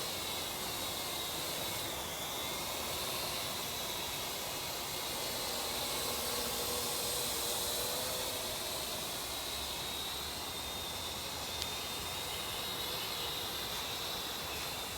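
Parrot AR.Drone quadcopter flying, its four electric rotors giving a steady whirring whine whose pitch drifts slightly up and down as the motor speeds change.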